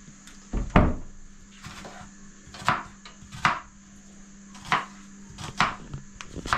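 Kitchen knife striking a wooden cutting board in single, unhurried chops, about one a second, the loudest under a second in, over a faint steady hum.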